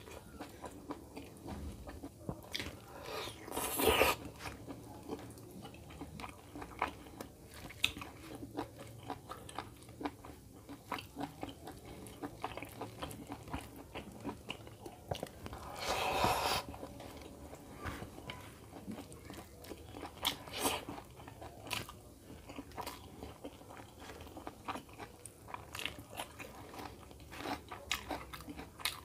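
Close-up mouth sounds of a person biting and chewing chicken curry and rice eaten by hand: a steady run of small wet clicks and crunches. There are two louder, longer sounds, about four seconds in and around sixteen seconds.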